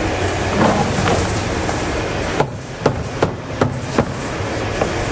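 Caper-sorting machine with a rotating perforated drum running with a steady rattling rumble. A little past the middle comes a run of about five sharp knocks as a plastic bin is handled and tipped over a tub.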